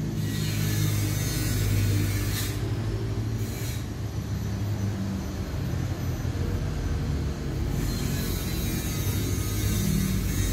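A motor running steadily: a low rumble with a hum under a light hiss.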